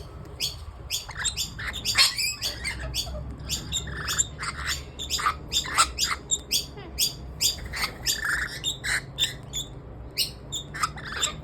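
Parrots calling in quick, overlapping short chirps and harsh squawks, dozens of calls without a break.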